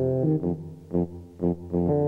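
Instrumental end-credits music with a steady beat of about two beats a second.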